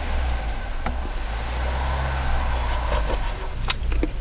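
A steady low rumble, with a few light metal clinks of a spoon against a stainless pot and bowl, about a second in and twice near the end.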